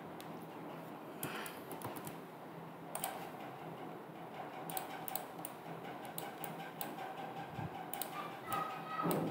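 Scattered short clicks of a computer mouse and keyboard keys, some in quick clusters, over a faint steady hum.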